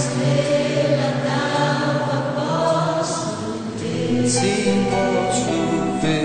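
Gospel song sung by a choir, with voices holding long notes.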